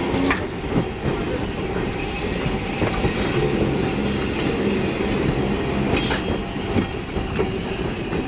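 Hiroshima Electric Railway 3100-series articulated tram rolling slowly past close by on street track, a steady rumble of steel wheels on rail. Two sharp clicks from the wheels come just after the start and about six seconds in.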